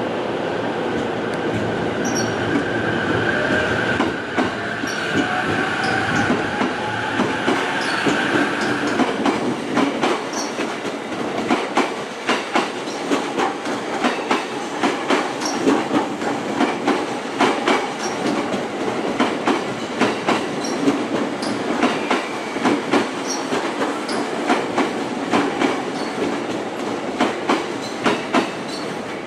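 JR East E231-series electric commuter train pulling away and passing close by. For the first nine seconds there is a steady high whine and a tone rising in pitch as it gathers speed. Then its wheels click over the rail joints in a steady clickety-clack as the cars go by.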